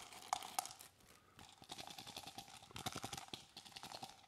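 Dice dropped into a faux-leather dice cup with a velvet lining, landing with a couple of clicks, then shaken in the cup with a quick run of quiet rattling clicks.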